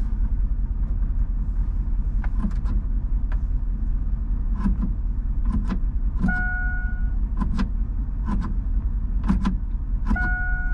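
Switches in a 2000 Chevrolet Silverado's cab clicking as the dome light and dash controls are worked, a dozen or so clicks at uneven intervals. The truck's electronic warning chime sounds twice, about six and ten seconds in, each a single held tone just under a second long. A steady low rumble runs underneath.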